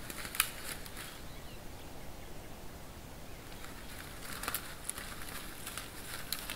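A bear moving through dry grass and twigs: scattered crackles and snaps, one sharp snap about half a second in and a cluster of them around four to five seconds in, over a steady hiss.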